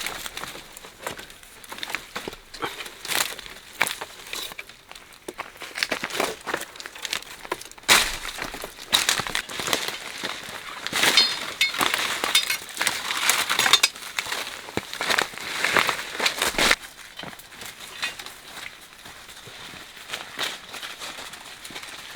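Irregular rustling and crackling of dry leaves and twigs being handled, busiest in the middle and settling down near the end.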